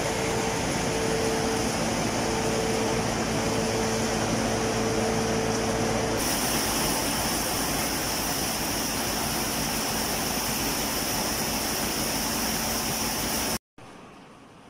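Crushing section of a feed pellet line running, a belt conveyor feeding corn stalks into the crusher: a loud, steady machine din with a faint steady hum in it. The sound changes abruptly about six seconds in, and near the end falls suddenly to a much quieter machine-room hum.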